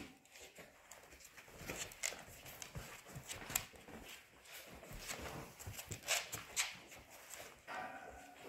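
Polish Hunting Dog puppies scuffling and play-fighting on a fabric-covered ottoman: soft pawing and rustling, a few sharper knocks about six seconds in, and a short puppy whine near the end.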